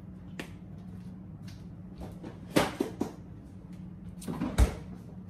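Kitchen handling noises as hot sauce is measured out with a spoon into the pans: a few light clicks and knocks, the sharpest about two and a half seconds in, and a dull thump near the end, over a steady low hum.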